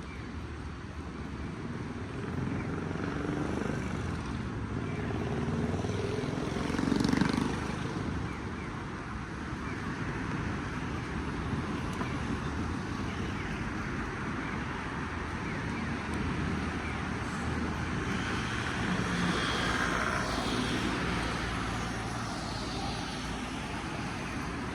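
Outdoor city ambience with a steady rumble of road traffic, swelling as a vehicle passes about seven seconds in.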